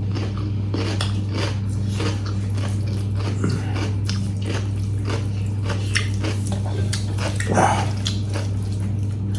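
Close-up eating sounds: food being bitten and chewed with many quick, irregular wet smacks and crunches. A steady low hum runs underneath, and one louder mouth noise comes about three-quarters of the way through.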